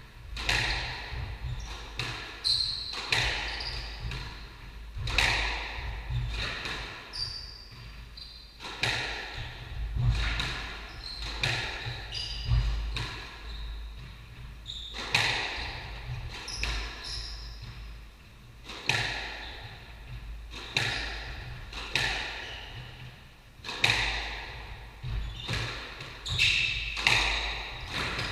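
A squash ball being struck by rackets and hitting the court walls in rallies: sharp echoing cracks every second or two, with brief shoe squeaks on the wooden floor.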